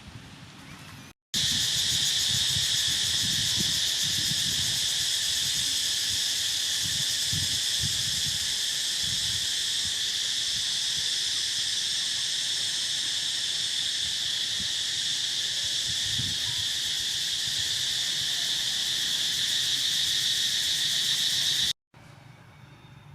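Loud, steady chorus of insects droning without a break, cutting in abruptly about a second in and stopping abruptly near the end, with a few soft low knocks underneath.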